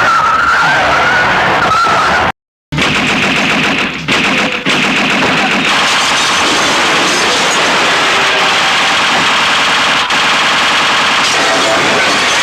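Film sound-effect automatic gunfire: rapid, continuous machine-gun bursts with a brief dead-silent break about two seconds in, where one clip cuts to the next. A wavering high tone rides over the first two seconds.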